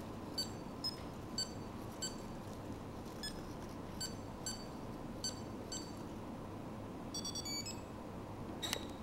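Micromouse robot's buzzer giving short high electronic beeps every half second to a second as it runs the maze, then a quick run of several beeps near the end.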